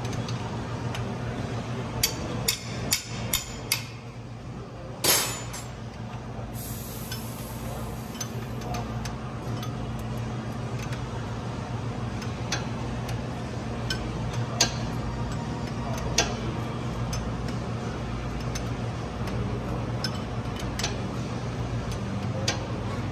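Steel wrench clicking and clinking against metal fittings while a fitting is worked loose, with a cluster of sharp clicks early on, a louder clank about 5 seconds in, and scattered single clicks after. A steady low hum runs underneath.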